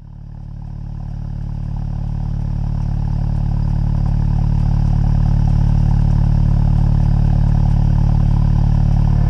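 Engine idling steadily as a low drone, fading in over the first few seconds and then holding level.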